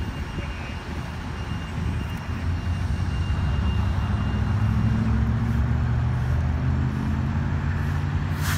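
A motor vehicle's engine running, a low hum that grows louder around the middle and eases slightly near the end. A single sharp click comes just before the end.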